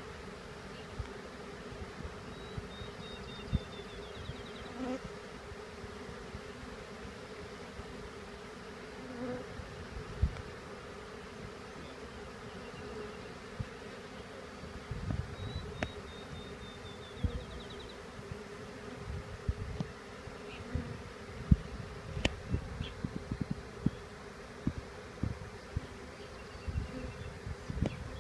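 A swarm of honeybees buzzing steadily, the dense hum of many bees at once, with scattered low thumps.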